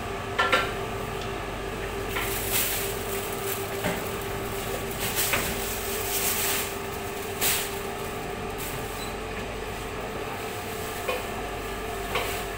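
Butcher's knife scraping and cutting through pork on the bone, with a few sharp knocks against the steel table, over a steady machine hum with a constant tone.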